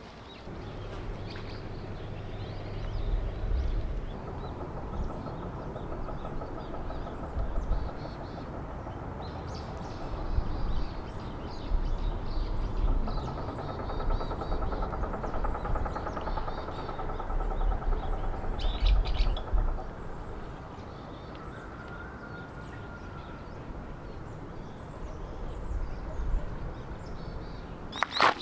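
Small birds chirping and singing over a low, uneven outdoor rumble. Footsteps crunch on gravel right at the end.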